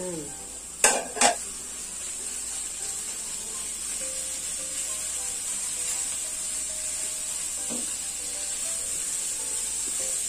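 Raw ground pork sizzling in hot oil in a frying pan as it is pressed, broken up and stirred with a spatula, the meat just added to sauté with garlic and onion. Two sharp knocks against the pan about a second in.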